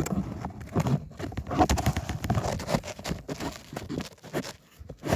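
Irregular crunches, scrapes and knocks close to the microphone, as snow and a small ice-fishing rod are handled on the ice.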